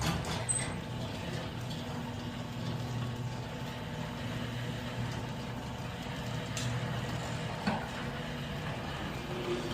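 Electric garage door opener running steadily as it moves the door on its freshly replaced rollers, with a low motor hum; it starts abruptly and stops abruptly near the end after about ten seconds.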